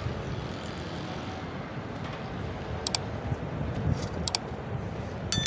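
Steady outdoor background rumble with a few sharp clicks. Near the end comes a single loud metallic clang that rings on for about half a second.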